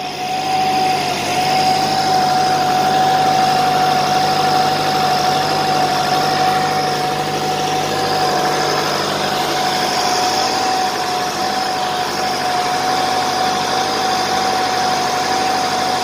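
Kuhn Euromix vertical feed mixer wagon running, driven by its tractor: a steady mechanical hum with a constant high whine, unchanging in speed.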